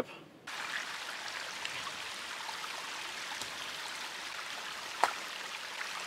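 Small stream trickling over rocks: a steady rush of water that starts abruptly about half a second in, with a light knock about five seconds in.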